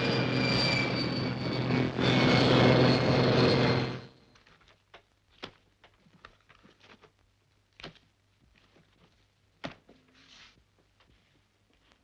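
Propeller airliner engines running loud, with a high whine that slowly falls in pitch; the noise cuts off abruptly about four seconds in. Then a quiet room with scattered light knocks and clicks as bundles of banknotes and a leather bag are handled on a desk.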